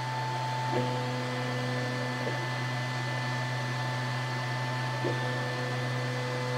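Creality Falcon2 Pro laser engraver framing a job. Its fans give a steady whir and hum, while its stepper motors whine at a steady pitch twice as the laser head traces the outline of the job: once about a second in for a second and a half, and again near the end.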